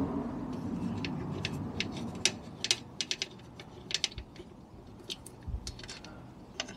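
Hands working at a scooter's transmission side cover and its ribbed intake hose: a run of light, irregular clicks and taps of metal and plastic parts being handled.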